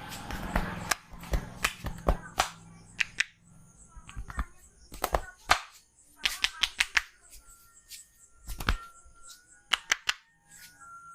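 Hands striking skin during a massage: sharp slaps and claps in quick clusters of a few strokes, a second or two apart, with faint background music.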